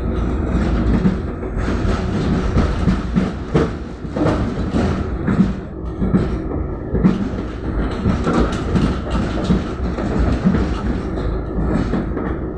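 Tram running along the track, heard from inside the car: a steady low rumble with the wheels knocking over rail joints about once a second.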